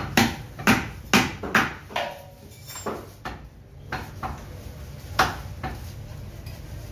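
Meat cleaver chopping down onto a wooden butcher's block: about five sharp knocks in quick succession over the first two seconds, then a few single knocks spaced out, one loud one about five seconds in.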